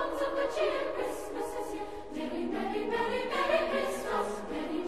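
Outro music: a choir singing several held, changing notes.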